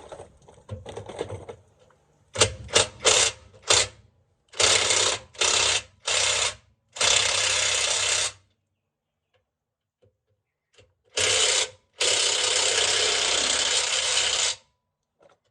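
Cordless DeWalt impact wrench hammering on a large 19 mm transmission-mount bolt in repeated bursts: four quick blips, then several longer runs, the last about two and a half seconds long.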